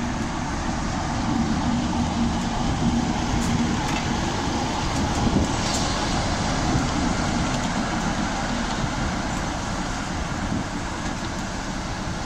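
BR Class 45 'Peak' diesel locomotive 45108, its Sulzer twin-bank diesel engine running with a steady, loud rumble and a low hum in the first few seconds.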